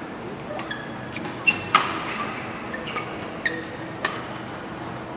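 Doubles badminton rally: rackets strike the shuttlecock in about five sharp smacks, the loudest two in quick succession around a second and a half in. Short squeaks of shoes on the court mat come between the hits, all in a large echoing hall.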